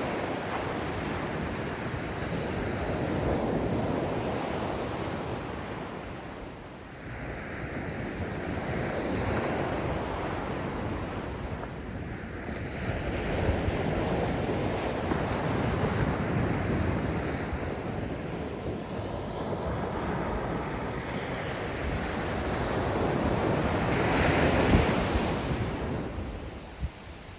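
Ocean surf breaking on a beach, swelling and falling back in repeated waves, with the loudest wave breaking near the end.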